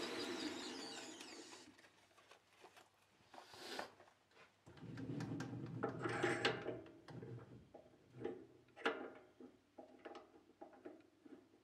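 Metal lathe spindle and chuck coasting down after being switched off, the running noise dying away within the first two seconds. Then scattered metallic clicks and clunks as the stopped chuck and the steel workpiece in it are handled by hand.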